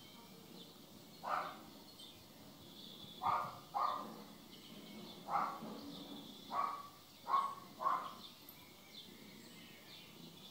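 A cat meowing in seven short calls spread over about seven seconds, some in quick pairs. Faint high chirping runs underneath.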